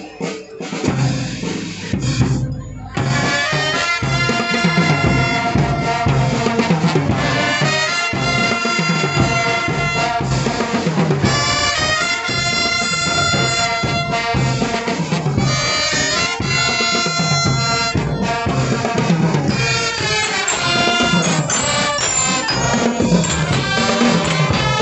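School drum-and-lyre marching band playing: bell lyres, trumpets and trombones carry a tune over a steady drum beat. The full band comes in about three seconds in, after a quieter opening.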